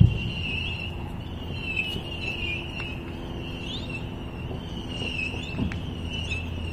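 Crickets chirping in a high pulsing trill that repeats about once a second, over a steady low rumble. A single thump comes right at the start, and a few faint pops follow.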